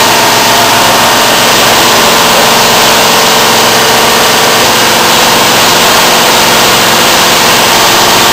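Gravity-feed paint spray gun hissing steadily as compressed air atomises paint onto a truck body panel, over a steady machine hum.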